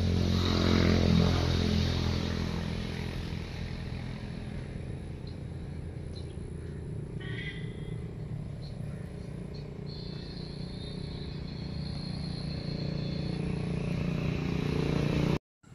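A motor vehicle engine passing by, loudest about a second in and then fading. Another engine grows louder toward the end and cuts off suddenly just before the end. A faint high chirp is heard in the latter half.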